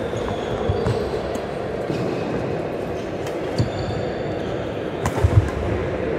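Badminton rally on a wooden indoor court: several sharp racket hits on the shuttlecock, short high shoe squeaks on the floor, and a few heavier footfall thuds about five seconds in, over a steady hum of echoing hall noise.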